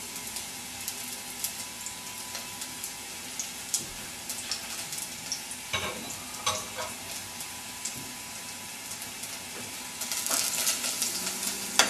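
Diced garlic sizzling in hot olive oil in a small stainless steel saucepan, a steady hiss with many small crackles and pops. The sizzle grows louder and busier about ten seconds in, as the pan is lifted off the burner.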